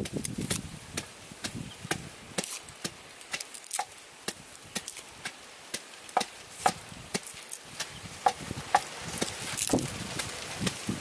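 Garlic cloves being peeled by hand: irregular sharp clicks and crackles of dry, papery skin as the cloves are prised apart.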